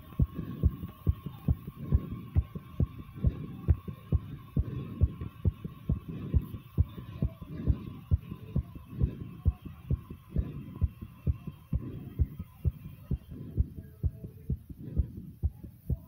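A person's fast heartbeat picked up close by a phone microphone: deep, regular lub-dub thumps, about two beats a second.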